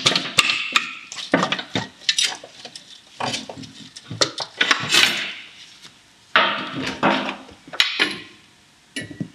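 Metal clanking and rattling as the car's gear-shift linkage is worked loose and lowered from underneath: irregular sharp knocks and clinks, with two longer scraping rattles about five and seven seconds in.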